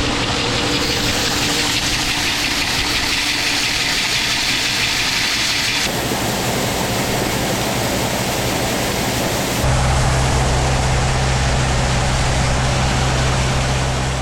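Farm vehicle engine running steadily, with the sound changing abruptly about six and ten seconds in; the last part is louder and deeper, with a strong low drone.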